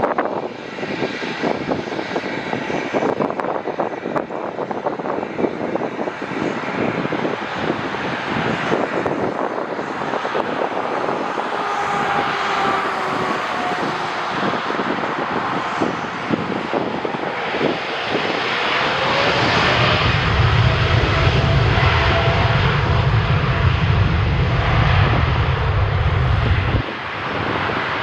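Jet airliner engines whining as the aircraft passes, the whine falling in pitch midway, over gusty wind buffeting the microphone. A heavy low rumble builds about two-thirds of the way through and cuts off suddenly near the end.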